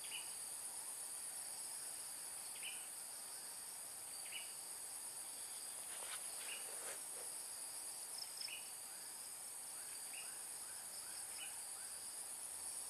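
Steady, high-pitched chorus of swamp insects such as crickets, with short chirps repeating every second or two.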